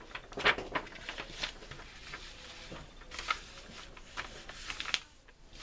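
Paper rustling and short light clicks of handling as a page of the model kit's instruction booklet is turned, the sounds coming in scattered bursts and dying away near the end.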